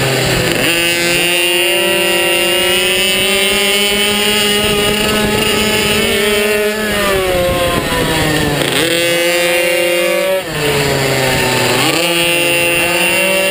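Minibike's small single-cylinder engine at high revs, heard from on board: the pitch climbs slowly under throttle, then drops sharply where the rider shuts off for corners, near 9 seconds and again about 10.5 seconds in, before rising again.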